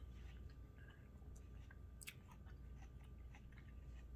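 Faint chewing of a bite of watermelon, small wet clicks and mouth sounds, one a little louder about two seconds in.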